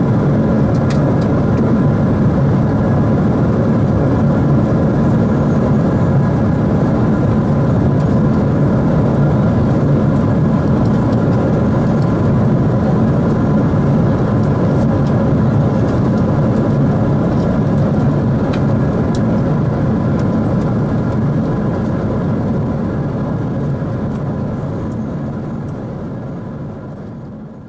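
Steady rushing air and engine noise inside a jet aircraft in cruise flight, with a few faint steady tones above the rush. It fades out near the end.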